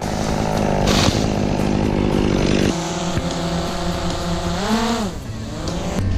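Two-stroke chainsaw running at high revs; its pitch dips and climbs back up about five seconds in.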